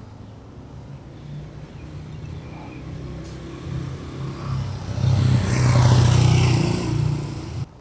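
A motor vehicle's engine running and drawing close, growing louder to a peak about five to seven seconds in, with engine and road noise; the sound cuts off suddenly near the end.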